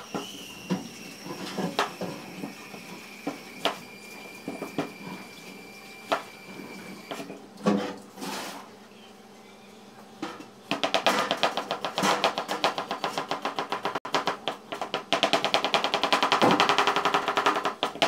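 Kitchen knife chopping onion on a cutting board: scattered single cuts at first, then from about eleven seconds in a fast, steady run of rapid chops, with a short break in the middle of the run.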